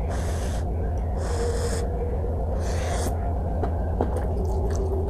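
A person eating very hot, spicy noodles, letting out three short airy breaths in the first three seconds, with a couple of faint clicks later, over a steady low hum.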